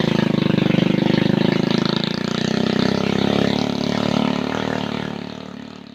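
A vehicle engine running steadily with a fast, even pulse; it fades out near the end.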